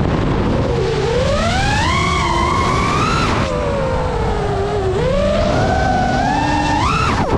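FPV quadcopter's brushless motors and propellers whining, the pitch rising and falling with the throttle: it climbs over the first three seconds, drops sharply about halfway, sinks, then climbs again before falling away suddenly near the end. A steady rushing noise lies underneath.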